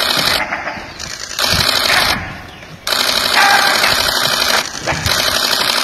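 Camera shutters firing in continuous bursts: rapid mechanical clicking in about four runs, each a second or so long, separated by short gaps.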